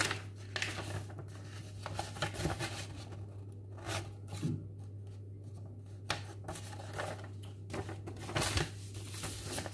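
Sheets of printed paper rustling and crinkling as they are unfolded and handled, in short scattered rustles, over a steady low hum.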